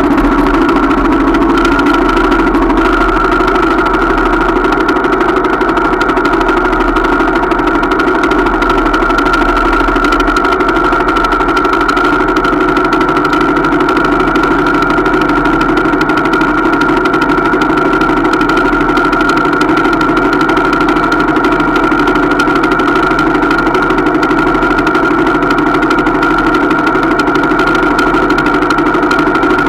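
125 cc trail motorcycle engine idling steadily, with the bike standing still.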